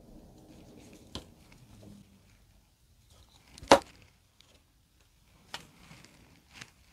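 Quiet handling of a plastic utility knife and snake plant cuttings: a few faint clicks and one sharp clack a little over halfway through, as the knife is set down on the table.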